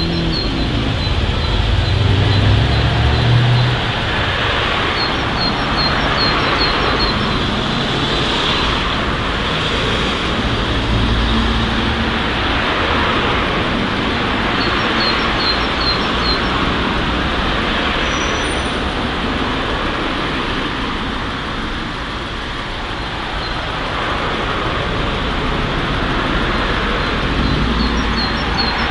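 Street traffic: cars passing one after another, tyre and engine noise swelling and easing, with a deeper engine rumble in the first few seconds. Short runs of high bird chirps come through several times.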